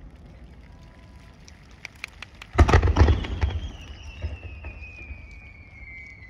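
Aerial fireworks: scattered crackling pops, then about two and a half seconds in a loud boom with a quick run of further bangs. Under the bangs begins a long whistle that falls steadily in pitch for about three seconds.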